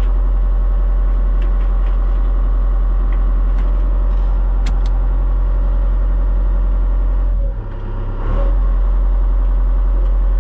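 A 120 excavator's diesel engine running steadily, with a brief drop in level about three-quarters of the way through.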